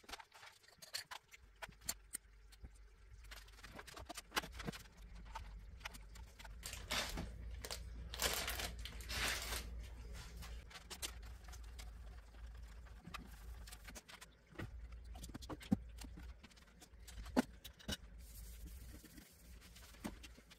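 Small makeup items handled and set down with scattered light clicks and knocks, and packaging rustling for a couple of seconds about eight seconds in, over a low steady hum.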